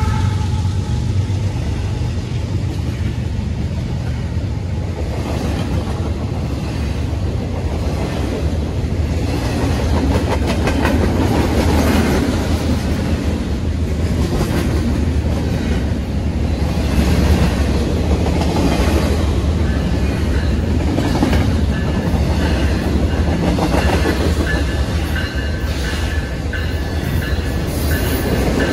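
Freight train passing close by: a diesel locomotive's rumble at first, then intermodal cars rolling past with the clickety-clack of wheels over rail joints. A faint high wheel squeal joins in the last several seconds.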